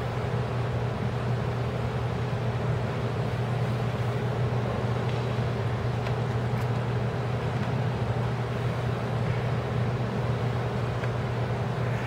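Steady background noise of a large hall: a constant low hum with an even hiss over it, and no distinct events.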